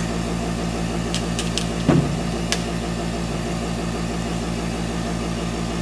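Small airbrush compressor running with a steady low pulsing hum, with a few light clicks and one louder knock about two seconds in.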